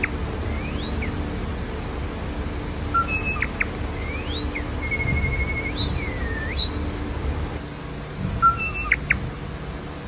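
European starling whistling and chirping in electronic-sounding, droid-like beeps, mimicking R2-D2-style robot sounds. Short whistles and rising sweeps lead into a wavering held tone and a looping up-and-down sweep near the middle, with a few short sharp whistles near the end.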